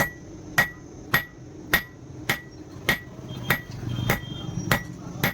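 A blacksmith's hand hammer striking metal on an anvil in a steady rhythm, about ten even blows, each with a short metallic ring, as the dagger steel is forged.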